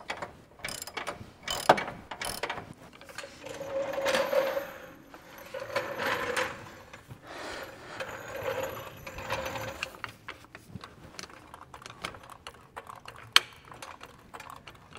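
Pittsburgh hydraulic floor jack being pumped by its long handle: a few slow pump strokes, each with a creaking squeal, among scattered metal clicks and knocks as the jack raises the front hub.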